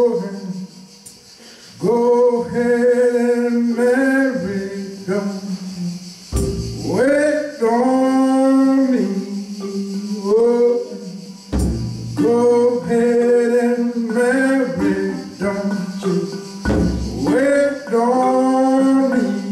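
Live band music: a man sings phrases that swoop up into held notes over percussion, with a deep drum hit about every five seconds.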